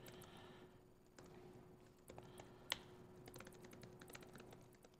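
Laptop keyboard typing, faint, with scattered keystrokes and a quick run of them in the second half, one key hit harder in the middle. A faint steady hum underneath.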